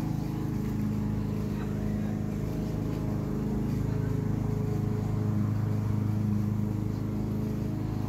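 A steady low hum from an engine or motor running continuously, holding an even pitch throughout.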